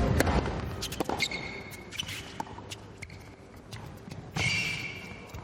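Tennis ball bouncing on an indoor hard court between points, a string of sharp single bounces, with two short high squeaks of shoes on the court, the louder one near the end.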